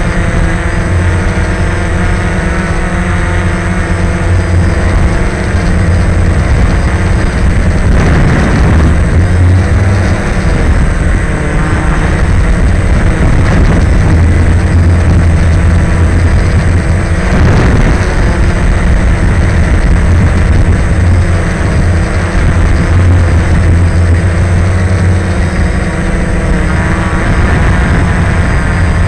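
Radio-controlled model car driving over a concrete parking deck, heard close up from a camera mounted on the car: a loud, steady rumble of motor, drivetrain and tyres, with a motor whine that shifts in pitch as the throttle changes.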